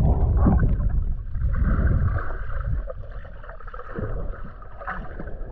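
Water sloshing and gurgling with wind rumbling on the microphone, loudest in the first two to three seconds and then easing off, with a few faint knocks near the end.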